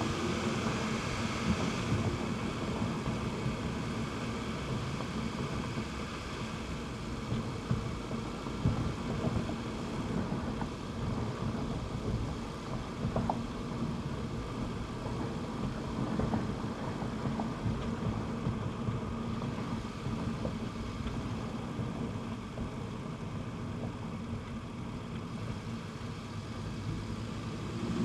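Audi TT RS's turbocharged inline five-cylinder engine running steadily without revving, a low rumble from the engine and Stage 1 exhaust.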